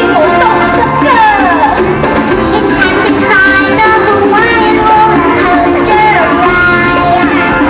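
Loud music with singing, the sung notes gliding up and down over a steady accompaniment.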